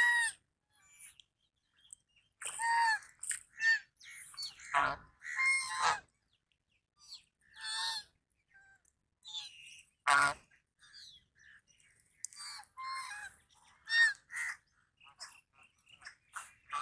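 Goose honking in a series of separate calls, broken by short silences.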